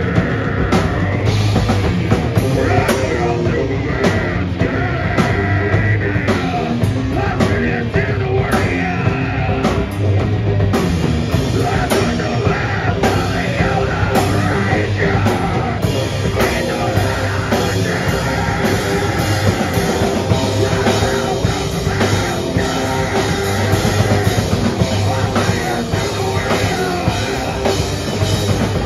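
A heavy band playing loud and live in a small club, with distorted electric guitar and bass over fast, steady drum-kit playing and crashing cymbals. The singer screams into the microphone.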